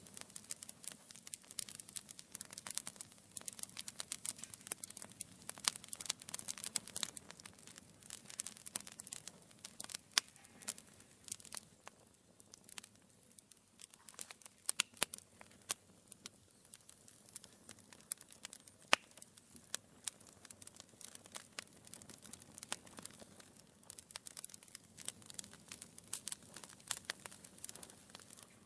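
Wood fire burning in a fireplace, crackling and popping: a dense stream of sharp irregular snaps of varying loudness over a soft hiss of flame, with a few louder pops.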